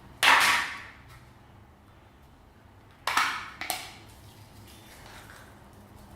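Slime being squished and pressed by hand: three sudden squelches, each fading within about half a second, the first a quarter second in and two close together about three seconds in.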